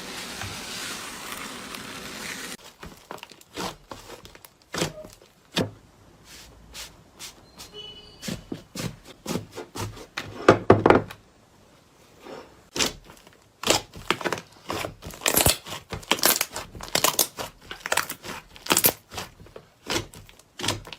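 Slime being squeezed and poked by hand, making irregular sticky pops, clicks and crackles as air pockets burst. It opens with a steady hiss that cuts off after about two and a half seconds.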